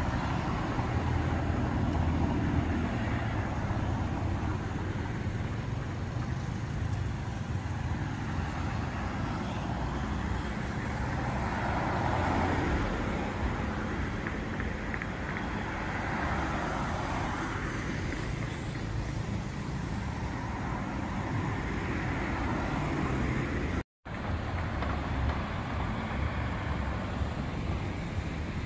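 City road traffic: a steady low rumble of car engines and tyres, swelling as vehicles pass about 12 and 16 seconds in. The sound cuts out for a moment about 24 seconds in, then the traffic noise carries on.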